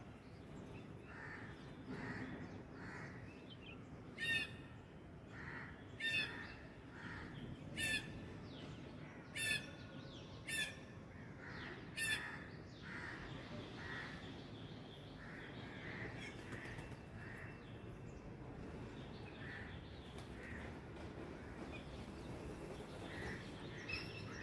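Birds calling: six loud calls in a row, one every second or two, over fainter short calls that keep repeating throughout.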